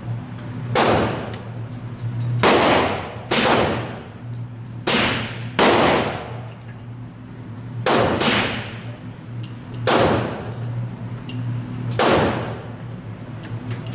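About eight gunshots at irregular intervals of one to two seconds on an indoor shooting range, each with a long echoing tail off the range walls, over a steady low hum.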